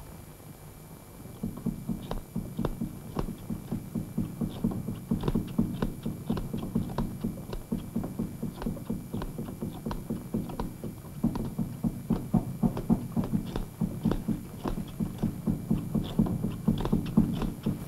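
Hand loom being worked, the beater packing down the weft and knots with a quick, steady run of wooden knocks, several a second, starting about a second and a half in.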